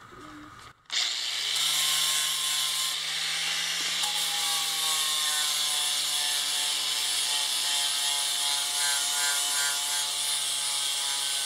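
Electric angle grinder running steadily with its disc against a steel axe head, grinding the rust-pitted surface smooth. It comes in abruptly about a second in, a loud hiss with a steady whine over it.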